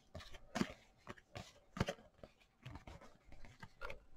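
Trading cards and pack wrappers being handled at close range: soft flicks, rustles and light taps, coming irregularly about once or twice a second.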